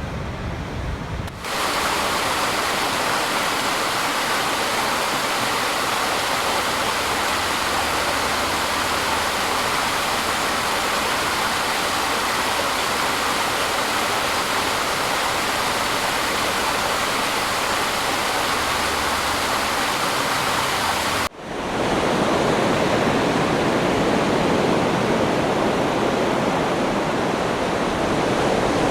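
Steady, loud rush of falling water, like a waterfall. It cuts out for a moment about 21 seconds in and resumes as a second stretch of rushing water, deeper in tone.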